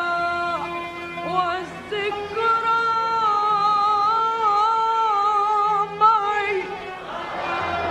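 Arabic orchestral music: a slow melody in long held, slightly wavering notes with short ornamented turns between phrases, a new phrase starting about two seconds in and the texture thinning near the end.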